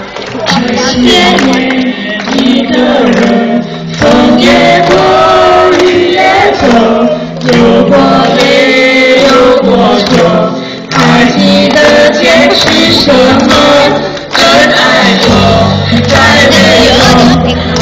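A small mixed group of men and a woman singing a song together into handheld microphones, amplified through a PA loudspeaker.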